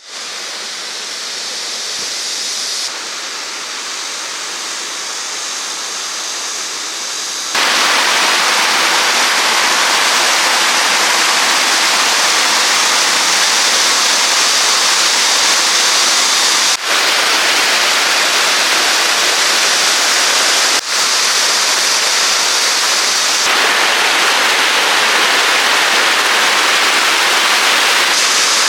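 Rushing water of a rocky valley stream, a steady noise that steps up louder about a quarter of the way in, with a few brief dips.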